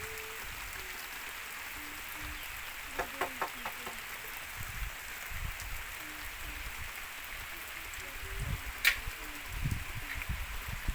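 Heavy rain falling as a steady hiss, with a few louder drips and taps and, near the end, low thuds.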